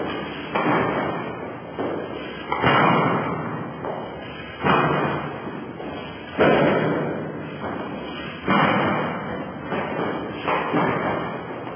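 A dancer's jumps landing on a mini trampoline, heavy thuds about every two seconds, each followed by a long echoing decay off bare concrete walls.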